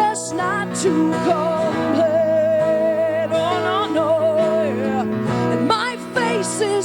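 A woman singing over acoustic accompaniment in a live acoustic pop performance, holding one long note with vibrato partway through.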